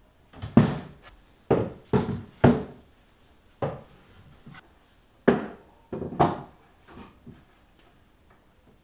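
Rough wooden planks and a small wooden side table being set down and shifted on a wooden cabinet: a series of wooden knocks and thunks, about four in the first three seconds, one near four seconds, and a cluster around five to seven seconds in.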